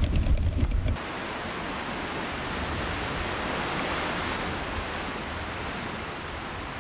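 Waves washing on a shore: a steady wash of surf that swells slightly and eases off. It follows about a second of loud, low rumbling with crackles that cuts off suddenly.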